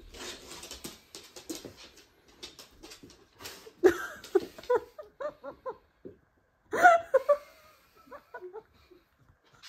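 A husky's booted paws tapping and scuffing on a hard floor as it takes awkward first steps in dog boots, a quick run of sharp taps. About four seconds in, short bursts of laughter take over, with another louder burst near seven seconds.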